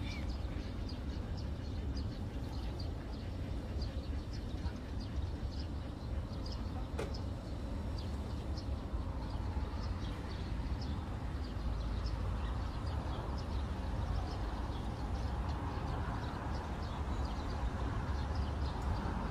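Small birds chirping in many short, high notes, over a steady low rumble.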